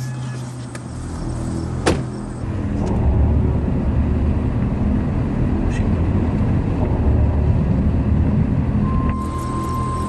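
A car door shuts about two seconds in, then the car's engine and tyres rumble steadily as it drives off.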